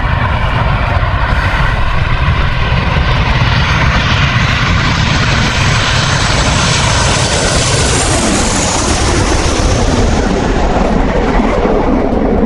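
Fighter jet passing, a loud steady rushing engine noise with a high whine that rises and then falls away about eight seconds in.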